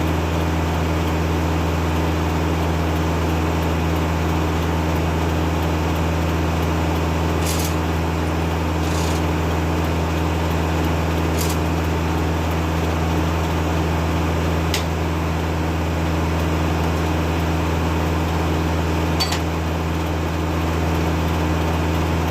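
Kubota tractor's diesel engine running steadily under PTO power, driving the Foley-Belsaw circular sawmill, heard as an even low drone. A few faint ticks come through it.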